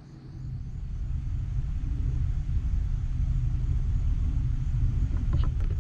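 A low rumble builds over the first second or two, then holds steady.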